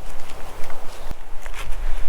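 Footsteps through forest floor litter, with twigs and dry branches snapping and crackling and a sharper knock about a second in.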